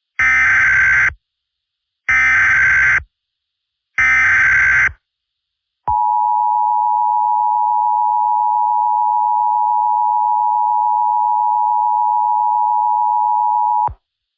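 Emergency Alert System header: three short bursts of digital data tones, about two seconds apart. Then comes the two-tone EAS attention signal, held steady for about eight seconds before it cuts off sharply. It is the warning that opens an emergency alert broadcast.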